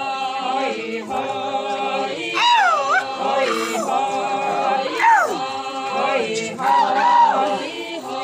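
A group of women singing a traditional folk song unaccompanied, in long held notes, with voices swooping up and down in pitch twice, about two and a half and five seconds in.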